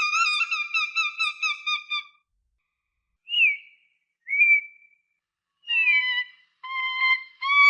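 Falcon calling: a rapid chattering run of shrill notes for about two seconds, then two short single calls, then a series of calls in quicker succession near the end.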